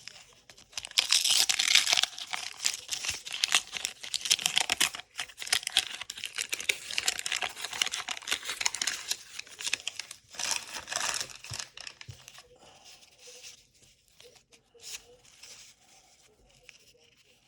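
Paper wrapper of a 1985 Topps baseball card pack being torn open and crinkled, with dense crackling through most of it. Near the end it dies down to faint rustling as the cards are handled.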